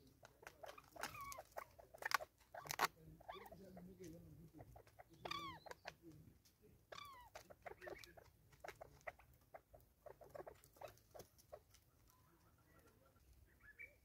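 Light clicks and taps of a Natal spurfowl and a crested francolin pecking seed at a plastic bottle feeder on a wooden stump. Twice in the middle comes a short bird call falling in pitch.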